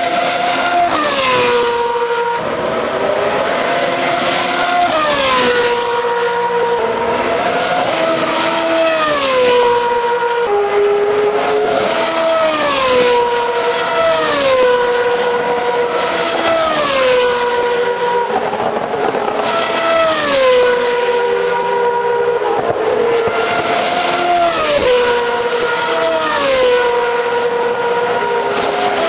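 A1GP single-seater race cars with Zytek V8 engines running at speed, the engine note dropping sharply in pitch about every two seconds.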